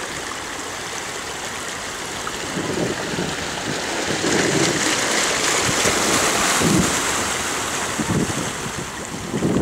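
Seashore noise: surf washing on the beach mixed with wind rumbling on the microphone, a little louder from about three seconds in until near the end.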